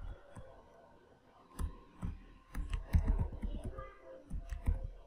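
Typing on a computer keyboard: irregular keystrokes, a few at first, then a quicker run from about a second and a half in.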